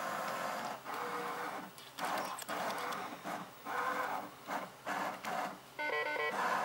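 Fidelity Chesster Phantom chess computer's motorised magnet carriage whirring under the board in several short runs with brief pauses, sliding pieces across the board to carry out its kingside castling move. A short burst of electronic beeps near the end.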